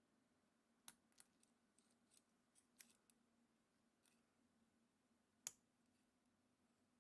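Faint, scattered metallic clicks of a pick tool working the pin stacks of a brass padlock, with one sharper click about five and a half seconds in.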